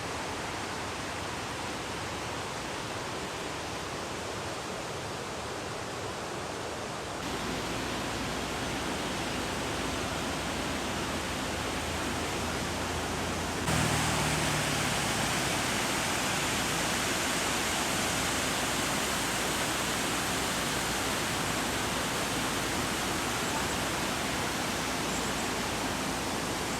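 Waterfall: a steady rush of falling water that jumps suddenly louder twice, about seven seconds in and again about halfway through.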